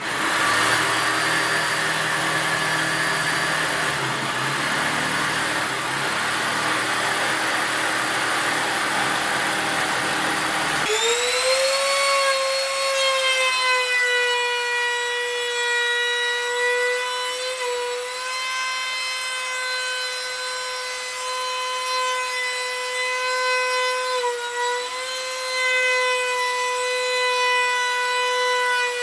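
A jigsaw cutting plywood, then, about eleven seconds in, a compact trim router starts up with a rising whine and runs at a steady high whine as it is worked along a plywood board, its pitch dipping slightly now and then under load.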